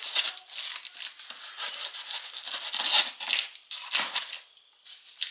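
Clear plastic document pouch on a cardboard shipping box crinkling and rustling under a hand, in irregular bursts that die down near the end.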